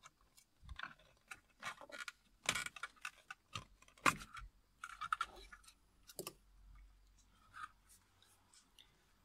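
Plastic front trim of a BMW E46 steering wheel being worked loose and pulled off by hand: a string of irregular plastic clicks, knocks and rattles, the sharpest a little before halfway.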